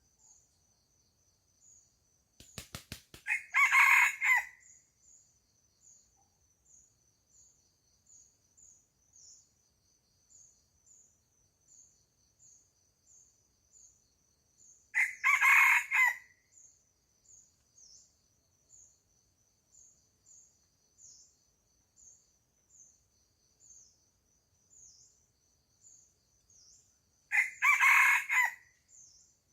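A rooster crows three times, about twelve seconds apart, each crow about a second and a half long. Under it runs a faint, steady insect chirping, and a quick run of clicks comes just before the first crow.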